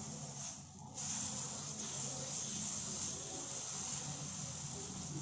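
Moong dal (pesarattu) batter sizzling on a hot tawa as it is poured and spread with a ladle: a steady hiss that dips briefly about half a second in, then comes back and holds.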